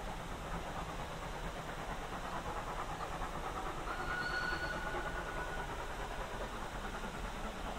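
GWR 57xx-class pannier tank steam locomotive working, its exhaust beating in a steady rapid rhythm. About halfway through, a faint steady high tone sounds for a second and a half.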